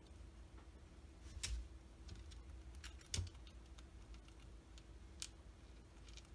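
Maltese dog eating dry kibble from a small bowl: irregular soft crunches and clicks, with three louder clicks spread through it.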